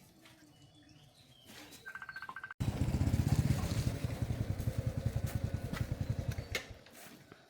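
A small engine running with a fast, even low pulse, starting abruptly about two and a half seconds in and dying away near the end. Just before it, a brief buzzing tone.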